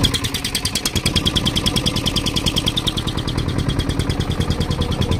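Fishing boat's engine running steadily with a rapid, even thudding beat.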